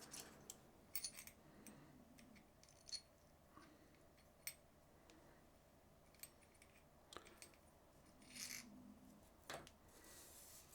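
Faint, scattered light clicks and small taps of small reel parts being handled: the drag washers of a baitcaster reel being lifted off its drag stack one by one, with a brief rustle or two.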